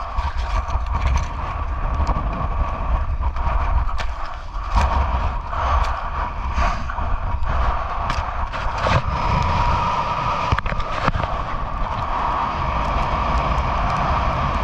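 Gale-force wind buffeting the microphone with a heavy low rumble and a steady, higher whine, broken by scattered knocks and scrapes from handling gear on deck.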